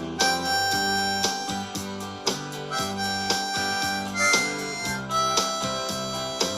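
Blues harp (diatonic harmonica) playing a solo melody of held, bending notes over a strummed guitar backing.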